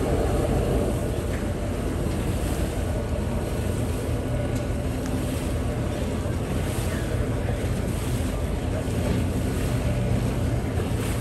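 Steady low rumble of a 49.5 m Palmer Johnson superyacht's engines running at the stern while it docks, with churned water sloshing against the hull. Wind buffets the microphone.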